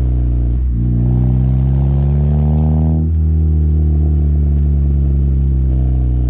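Honda Civic Si's 2.4-litre four-cylinder running through a K-Tuned 3-inch catback exhaust while driving: the note rises under acceleration from about a second in, drops at a gear change about three seconds in, then pulls steadily again.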